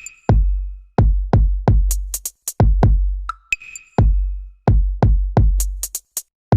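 Electronic background music: a drum-machine beat with deep, booming kick drums and crisp hi-hat and snare hits.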